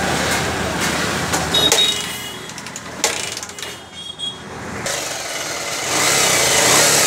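Metal clicks and clinks with short high rings, then about six seconds in a Bajaj Pulsar 150's single-cylinder engine starts and keeps running. It fires now that current reaches the ignition with the shorted switch bypassed and the CDI refitted.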